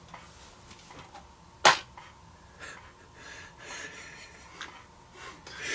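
A sealed DVD case being opened by hand: one sharp click about a second and a half in, then faint rustling and scratching.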